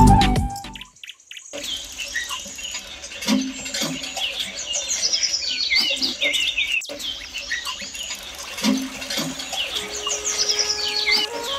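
Small birds chirping and tweeting in a busy chorus of short, quick calls, with a few soft low thumps. Background music fades out in the first second and a melody comes back near the end.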